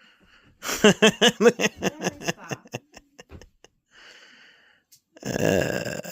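A person laughing in a quick run of short pulses, then a breathy exhale near the end.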